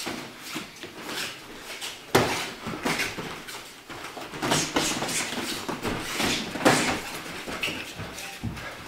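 Boxing gloves and bare feet during light Muay Thai sparring on floor mats: a series of thuds and slaps from punches, kicks and footwork, with the sharpest hits about two seconds in and just before seven seconds.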